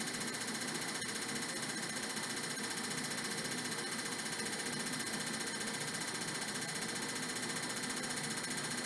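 Fuel injector tester running a test, firing the injectors in a steady, rapid buzz of clicks.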